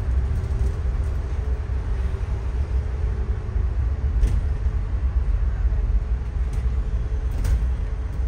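City bus heard from inside the cabin: a steady low engine and road rumble with a faint whine over it, and a couple of sharp knocks or rattles, one about four seconds in and one near the end.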